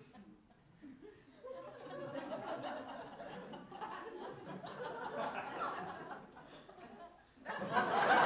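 Theatre audience laughing, chuckles building about a second and a half in, then a louder burst of laughter near the end.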